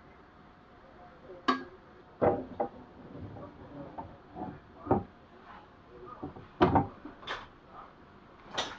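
Clicks and knocks of a train's hinged fold-down window table and bin lid being lifted and unfolded by hand: about eight separate sharp knocks, the loudest a double knock about two-thirds of the way through.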